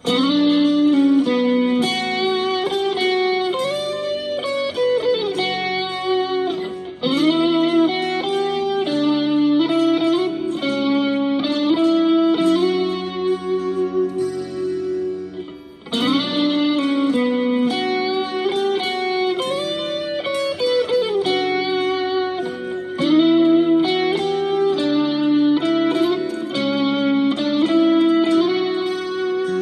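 Stratocaster electric guitar playing a slow instrumental melody, single notes with string bends up and down over held lower notes. The phrase begins again about halfway through.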